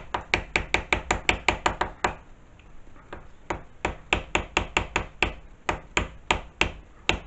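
Lead hammer tapping a mild steel block down onto a parallel in a milling machine vise, to seat the work level for milling. Quick light taps about five a second, a short pause, then slower taps from about three and a half seconds in.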